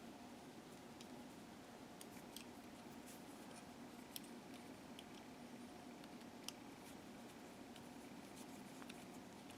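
Faint, scattered small clicks of tiny plastic chassis parts being fitted together by hand, two slightly sharper ones about four and six and a half seconds in, over a low steady room hum.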